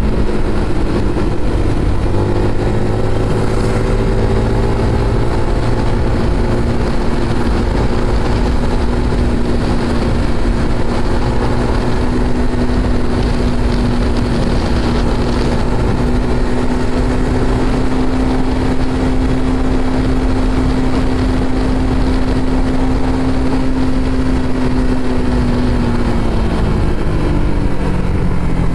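Motorcycle engine running at a steady cruising speed under a rumbling haze of road and wind noise. Its pitch holds, then drops about three seconds before the end as the bike slows.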